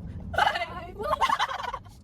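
A person's voice in two short, high, warbling outbursts, one after the other.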